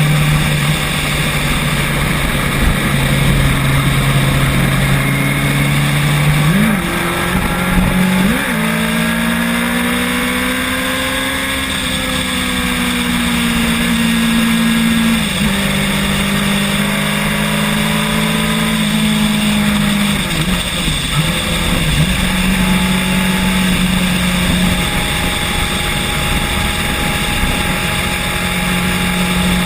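Vehicle engine running while under way, its low tone holding steady and then shifting to a new pitch several times.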